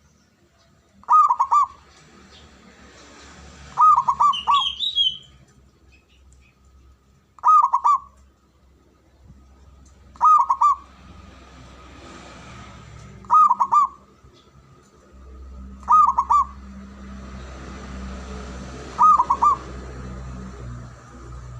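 Zebra dove (perkutut) cooing: short phrases of a few quick notes, repeated about every three seconds.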